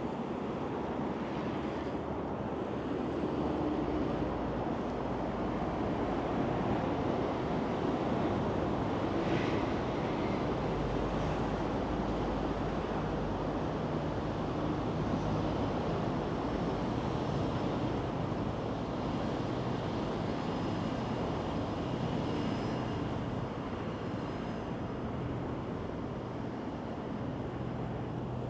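Steady rushing noise of wind on the microphone from riding a bicycle, mixed with the hum of road traffic.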